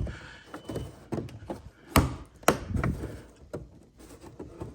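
A series of sharp knocks and clacks as a front mud flap is tugged and worked loose from the Corvette's front wheel arch. The loudest knock comes about two seconds in, with another about half a second later.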